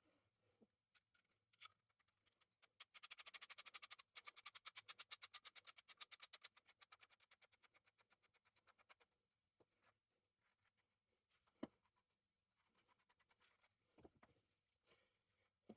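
Faint, rapid, even clicking, about eight to ten clicks a second, starting about three seconds in and fading away over some six seconds, like a small mechanism spinning down. A few light taps and knocks come before and after it.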